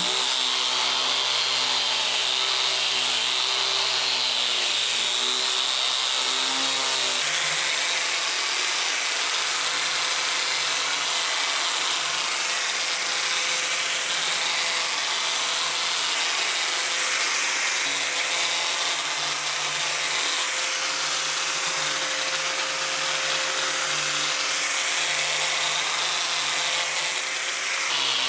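A handheld power tool running steadily on wood, its motor note shifting about seven seconds in.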